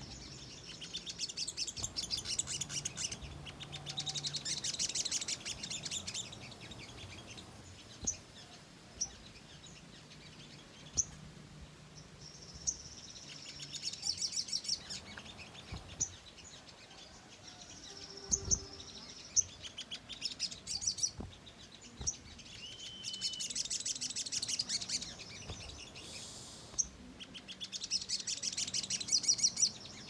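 Olive-backed sunbird singing: about five bursts of rapid, chattering trills, each lasting a couple of seconds, with single sharp chips scattered between them.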